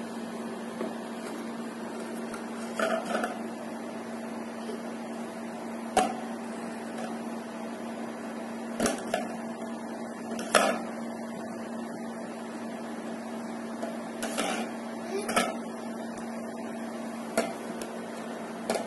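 Hollow plastic rings of a toddler's ring-stacking toy knocking and clacking as they are picked up and dropped onto the toy's cone. There are about seven separate short clicks a second or more apart, over a steady low hum.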